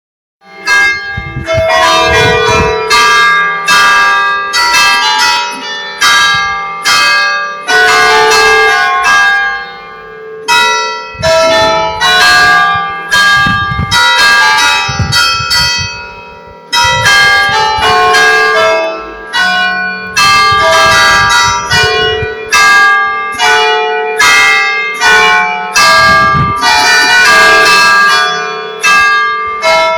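A peal of church bells: several bells struck in quick succession, about three strokes a second, their ringing tones overlapping, with two brief lulls.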